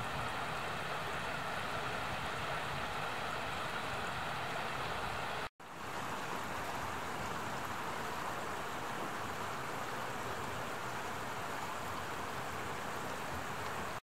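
Shallow mountain stream running over rocks: a steady rush of water. It drops out for an instant about five and a half seconds in, then carries on.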